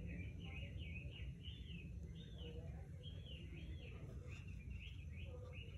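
A small bird chirping and warbling faintly and continuously, short arching notes one after another, over a steady low hum.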